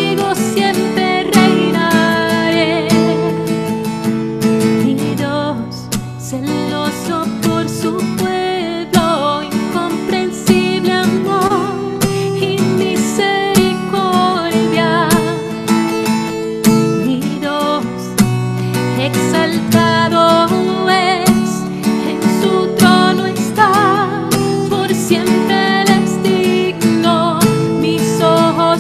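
A woman singing with vibrato while strumming chords on an acoustic guitar.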